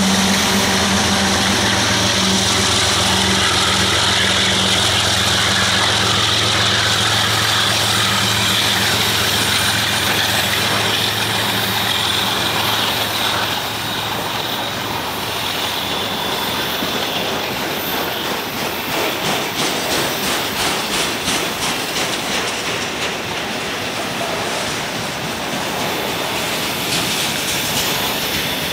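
GE ES44AH diesel locomotive passing close by, its engine's steady drone fading over the first dozen seconds. Then autorack freight cars rolling past with steady wheel-and-rail noise and a quick clickety-clack of wheels on the track in the middle.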